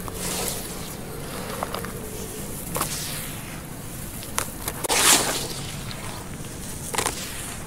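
Dry sand-cement and charcoal mix crumbled by hand and falling into a basin: grains and small lumps pattering down, with a few sharp clicks. A longer, louder pour of powder comes about five seconds in.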